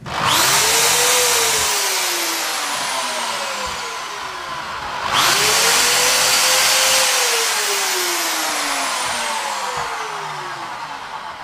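Corded electric drill boring two holes into pine wall boards, one after the other. Each run starts suddenly with a quick spin-up, then its whine sinks slowly in pitch; the second starts about five seconds in.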